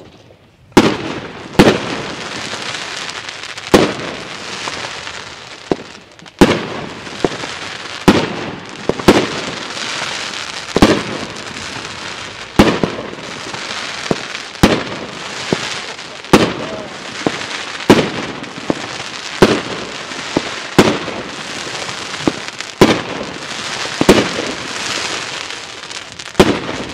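Jorge New Generation 2 firework battery firing shot after shot, a sharp bang about every one to two seconds. Between the bangs, its crackling stars hiss and sputter.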